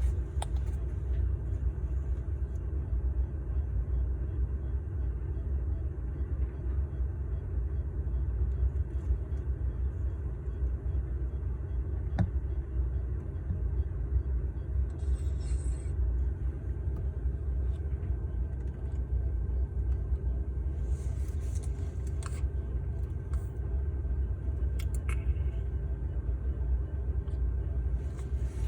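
Steady low rumbling hum of an infant incubator running, with a faint steady high tone over it. A single sharp click comes about twelve seconds in, and a few brief soft rustles follow later.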